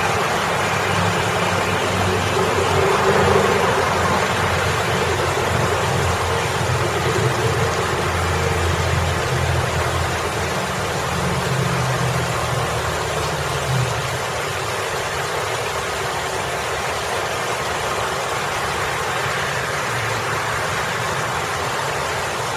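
Water spilling steadily over a boulder into a rock pool, a constant splashing hiss, mixed with road traffic: a low engine rumble from passing vehicles that is heaviest in the first half and fades about fourteen seconds in.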